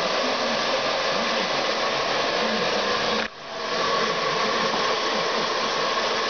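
Handheld hair dryer blowing steadily, with a sudden dip about halfway through before the airflow builds back up.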